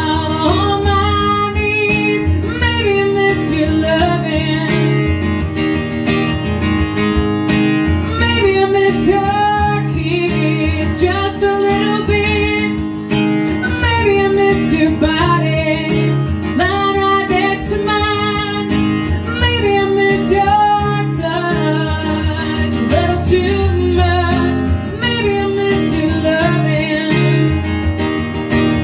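A woman singing live, accompanying herself on a strummed acoustic guitar.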